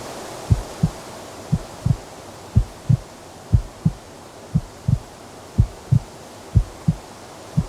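A slow heartbeat sound: paired low thumps, lub-dub, repeating about once a second over a faint steady background noise.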